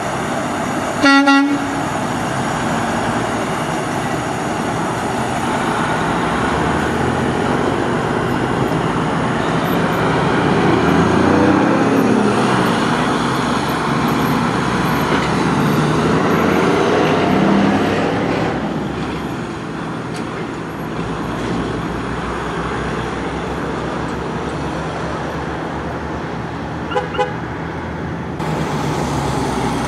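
Diesel dump truck pulling away: a short horn blast about a second in, then the engine pulling through the gears, its pitch rising and falling several times before it fades as the truck drives off. Two quick horn toots near the end.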